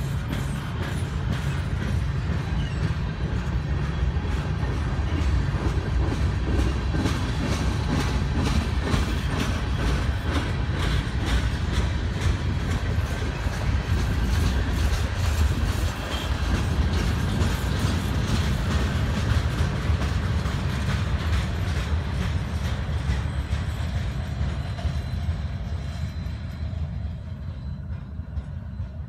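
Cars of a very slow-moving mixed freight train rolling past close by: a steady low rumble with a run of clicks from the wheels crossing rail joints. It fades over the last few seconds as the end of the train moves away.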